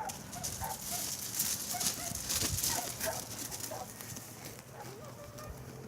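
Farm animals making short, repeated calls, with a rustling, clicking hiss for the first few seconds.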